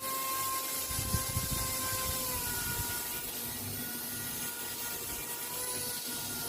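Small battery-powered DC motor spinning a toy plane's propeller with a steady whirring hum whose pitch dips slightly about two seconds in, with a few low knocks from handling early on.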